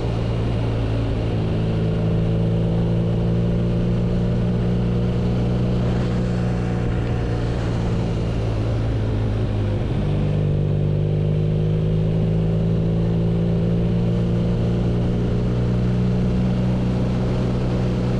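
BMW R nineT's 1170 cc air/oil-cooled boxer twin running at steady revs, with a brief shift in engine note about ten seconds in.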